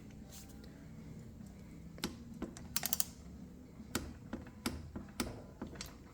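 Sharp, scattered clicks from a torque wrench tightening the front brake caliper bolts, with a quick run of ratcheting clicks about three seconds in.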